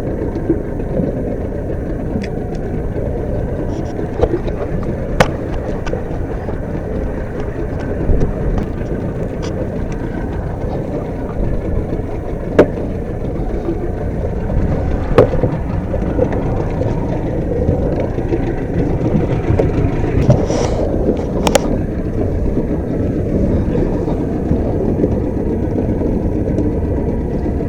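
A boat engine running steadily under way at trolling speed, with a few sharp knocks scattered through it.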